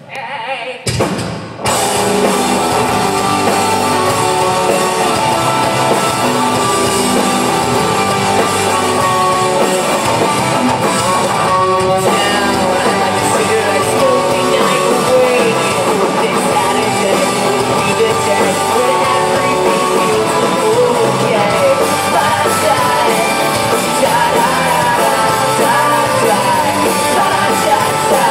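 Rock band playing live, with a singer over electric guitar and drum kit. After a brief lull, the full band comes in about two seconds in and keeps playing at a steady level.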